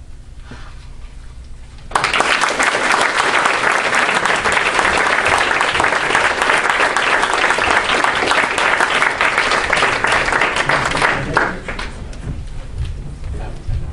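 Audience applauding: the clapping starts suddenly about two seconds in, holds steady, and tapers off near the end.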